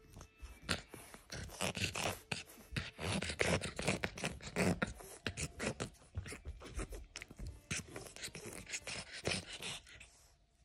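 A puppy chewing and gnawing a hard plastic zebra toy: rapid, irregular clicks and scrapes of teeth on plastic, dying down near the end.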